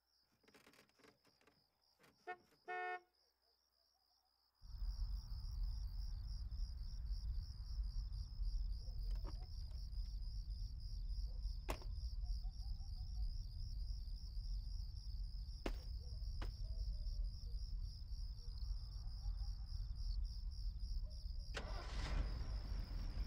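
Night-time outdoor ambience of crickets chirping steadily over a low, constant rumble like a running vehicle or traffic, with a few sharp clicks. It begins about five seconds in, after a near-silent stretch that holds a brief pitched beep.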